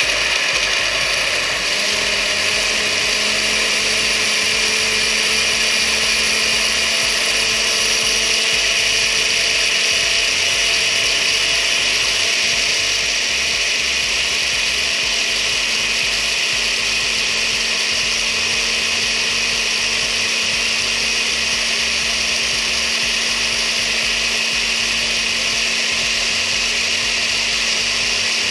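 Countertop blender motor running steadily at high speed, puréeing a liquid marinade of tomato, onion and pepper until smooth. The level dips slightly about halfway through.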